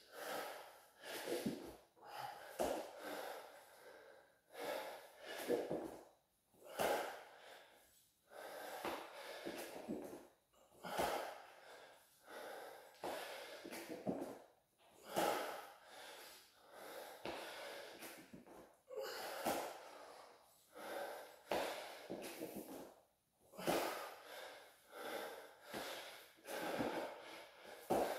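A man breathing hard and fast during burpees, each breath coming about once a second, panting from the exertion.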